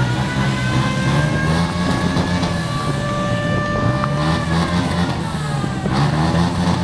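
Motorcycle engines of a group of mototaxis running together in a steady hum, with a long high tone sliding slowly up and later down over them.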